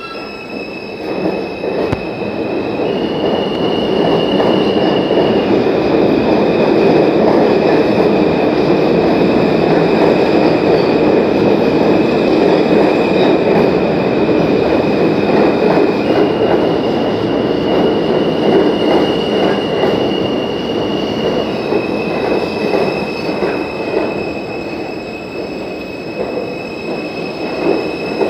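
New York City subway W train of R160 cars running into the station past the platform: a loud, dense rumble of wheels on rail that builds over the first few seconds and eases near the end. Over it a steady high-pitched whine steps back and forth between two pitches.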